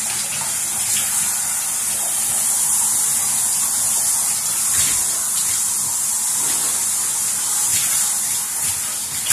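Handheld shower sprayer spraying water steadily onto a large dog's wet coat, rinsing it in a bathtub.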